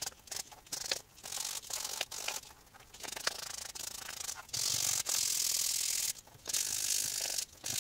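An 800-grit sanding stick rubbed back and forth along the edge of chrome-tanned leather, flattening the dried edge-finish coat. The footage is fast-forwarded, so the sanding comes as quick, uneven runs of rasping strokes with short pauses between them.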